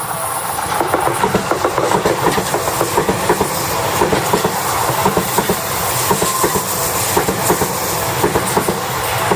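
Electric train passing over a level crossing, its wheels clattering rapidly over the rail joints, with the crossing's warning bell ringing faintly underneath.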